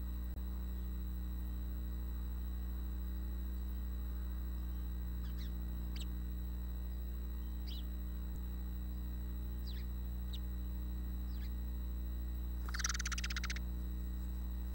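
Faint, short, falling bird chirps, one every second or two, over a steady low hum. About 13 s in, a brief scratchy rasp stands out as the loudest sound.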